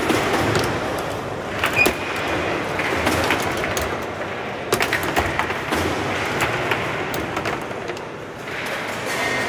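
Foosball table in play: irregular sharp knocks of the ball being struck by the plastic players and hitting the table, with the rods sliding and clacking in their bearings, over steady background noise. The loudest knocks come a little under two seconds in and again around five seconds.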